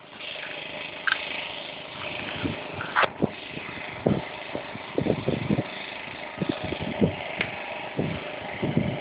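Steady outdoor background noise with irregular low thumps and knocks, and one sharp click about three seconds in.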